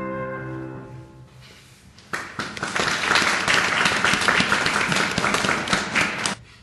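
The final held chord of an instrumental ensemble fades away. About two seconds in, an audience starts to applaud, and the applause cuts off abruptly near the end.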